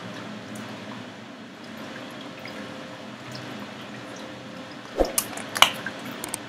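Steady low background hiss, then about five seconds in a few sharp clicks from a subscribe-button pop-up animation's sound effects.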